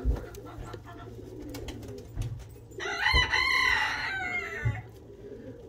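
A rooster crowing once, a wavering call of under two seconds that starts about three seconds in. A few dull low thumps are also heard.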